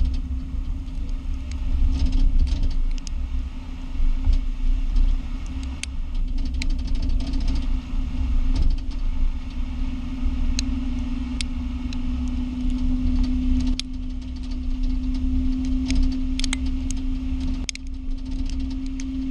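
Lexus IS250 driving, with low road rumble and a steady hum under irregular sharp clicks and knocks from the left rear. The noise comes from a broken slide pin on the left rear brake caliper, which lets the caliper rattle.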